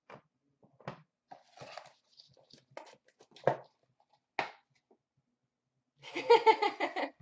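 Hard plastic graded card slabs clicking and knocking as they are set on a stack, with packaging rustling. A short voice-like sound lasting about a second near the end is the loudest thing.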